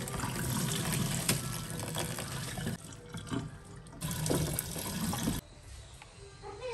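Water splashing as it is poured off into plastic colanders in a sink, draining soaked instant noodles and washed chopped Chinese cabbage. There are two pours: a longer one at the start, then after a short lull a second one about four seconds in that stops suddenly a little after five seconds.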